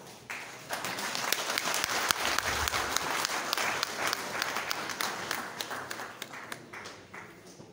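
Audience applauding, many hands clapping. It starts about a third of a second in, is strongest for the first few seconds and slowly dies away near the end.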